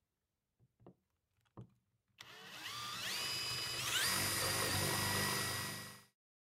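Electric drill boring a wider hole into a wooden block, its whine rising in pitch in two steps as it speeds up, then stopping near the end. A few faint taps come just before it starts.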